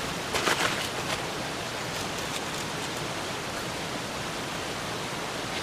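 Steady rushing outdoor background noise, like flowing water, with a few brief scraping rustles in the first second.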